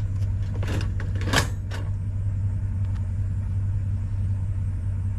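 Pickup truck engine idling with a steady low rumble, and a short clatter about a second and a half in.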